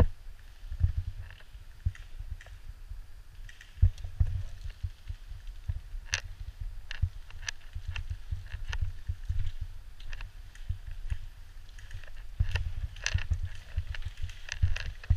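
A person walking through wet grass and into brush: irregular low footfall thumps and jostling of the gear, with leaves brushing past and scattered sharp clicks that come thickest near the end.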